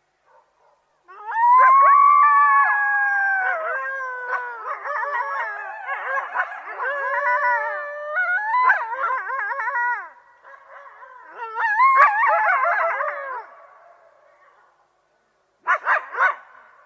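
A group of coyotes howling, several voices overlapping in long gliding calls that break into wavering yips. A few short, sharp yips come near the end.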